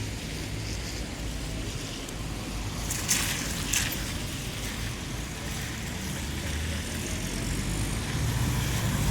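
Road traffic on a wet street: engines running low and steady under an even hiss of tyres on wet pavement. Two short, sharp hisses come about three seconds in, and engine sound swells near the end as a vehicle approaches.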